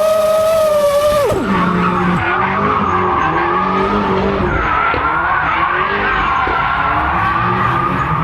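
FPV drone motors whine at a steady pitch, then drop sharply about a second in as the throttle comes off. After that, car engines with wavering pitch and tyre skidding noise from drifting cars carry on.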